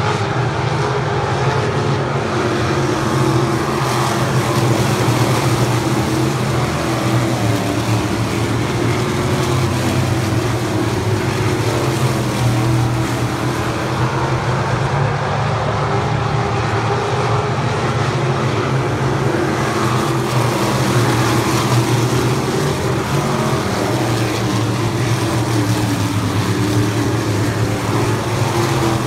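Winged dirt-track sprint cars racing around the oval, their V8 engines running continuously and swelling a little as the cars come round.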